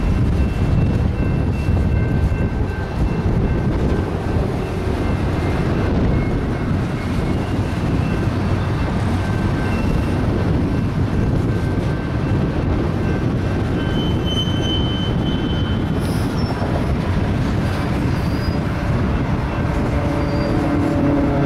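Freight train cars (boxcars and empty centerbeam flatcars) rolling past, a steady rumble of steel wheels on the rails. A faint high wheel squeal runs through the first half, with a brief sharper squeal about two-thirds through.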